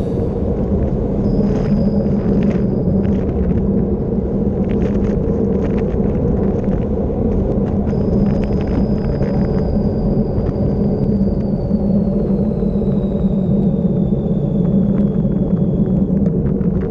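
Steady wind noise buffeting a handlebar-mounted action camera's microphone on a fast road-bike descent, with road rumble from the tyres. A faint high whistle slides slowly lower over the second half.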